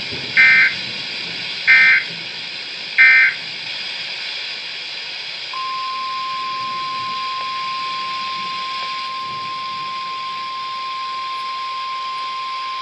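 Weatheradio Canada emergency alert signal: three short bursts of the SAME digital header, about a second and a third apart, then a steady 1050 Hz warning alarm tone that begins about five and a half seconds in and holds, over steady radio hiss. The sequence marks the start of a severe weather warning broadcast.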